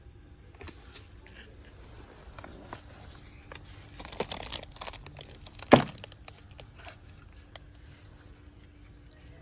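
Handling noises: scattered clicks and rustling, with a denser burst of crinkling about four seconds in and one sharp knock just before six seconds.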